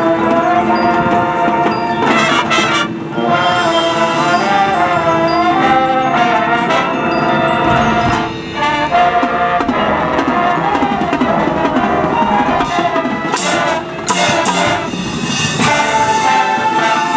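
Marching band playing, its brass section carrying a melody over percussion and cymbal crashes.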